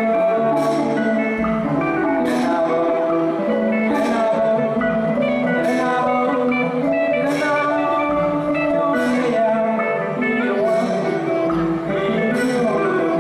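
Amplified music: a man sings into a handheld microphone over an accompaniment with guitar-like plucked strings. A sharp percussive hit recurs about every second and a half.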